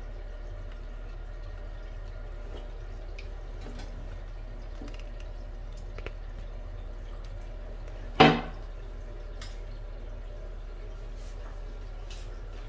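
Low steady room hum with a few faint ticks, and one sharp knock about eight seconds in.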